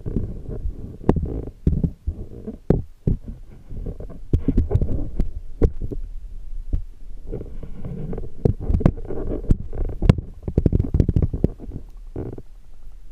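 Muffled underwater sound picked up by a submerged camera: irregular surges of low rumbling water movement, with many sharp clicks and ticks scattered through it.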